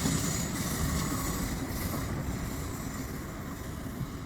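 Steady rumbling of a moving train, easing slightly, then cut off abruptly.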